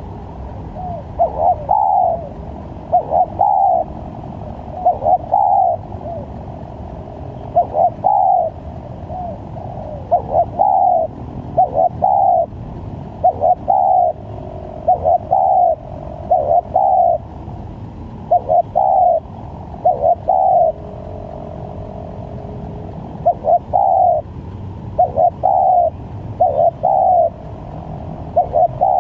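Spotted dove cooing over and over in short phrases of two or three notes, a phrase every second or two, the varied song used as a lure call for trapping doves. A steady low hum runs underneath.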